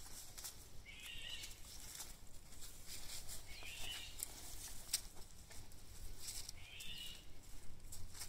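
Entlebucher puppies scuffling in shrubs and bark mulch: scattered rustles and small knocks. A short high call recurs about every three seconds in the background.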